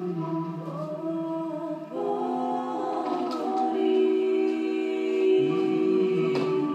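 Slow duduk music: long, held melody notes in several layers over a low drone, with the low part sliding up about five seconds in.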